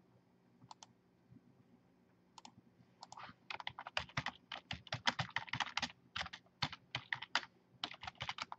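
Typing on a computer keyboard: a few scattered key taps, then, about three seconds in, a fast run of keystrokes.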